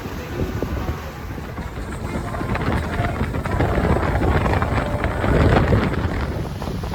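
A boat running on open water with wind buffeting the microphone, a steady rumbling noise that swells to its loudest about four to six seconds in.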